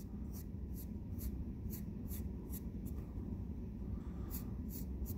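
Pencil scratching on paper in short, quick strokes, about two or three a second, as curves are sketched. The strokes pause for about a second around three seconds in, then a few more come near the end.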